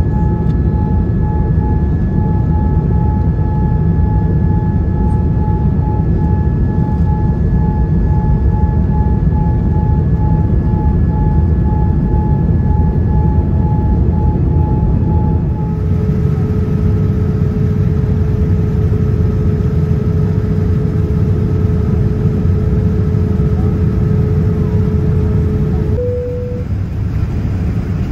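Cabin noise of a Boeing 787-9 airliner in climb: a steady roar from its GEnx jet engines and the airflow, with a steady whining tone over it. A little past halfway the whine drops to a lower pitch, and it shifts up briefly near the end.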